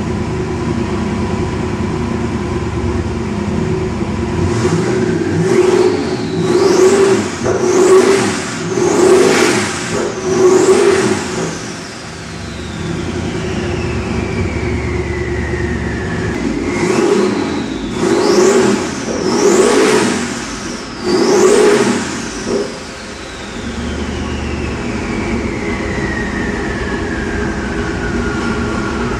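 A 509 cubic-inch twin-turbo big-block Chevy engine idles, then is blipped through two quick runs of about five revs each. The turbochargers' whistle climbs with each run of blips and then winds slowly down over several seconds as the engine drops back to idle.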